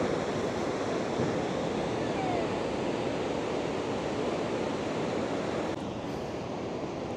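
Heavy ocean surf breaking and rushing in a steady roar, easing slightly near the end.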